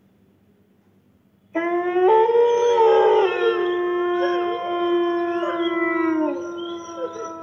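Near silence, then about one and a half seconds in a chorus of several wolf howls starts abruptly, long held notes at different pitches overlapping, some sliding down at their ends; a sound effect presented as dire wolves howling.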